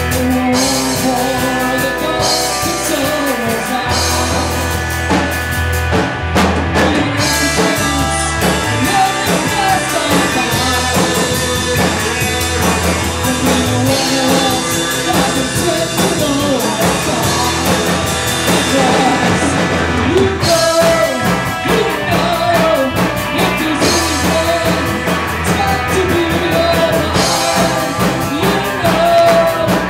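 Live rock band playing: electric guitars, electric bass and a Ludwig drum kit keeping a steady beat, with a man singing lead.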